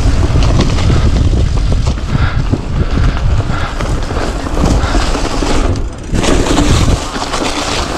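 Wind rumble on a GoPro Hero 8's microphone and tyre noise from a mountain bike ridden over grass. The heavy low rumble drops away about seven seconds in.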